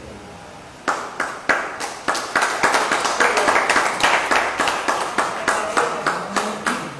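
A small group of spectators clapping by hand: a few single claps about a second in, building quickly into steady applause that dies away near the end.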